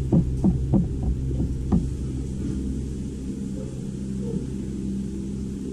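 Steady low mechanical hum, with about six short tones falling in pitch in the first two seconds.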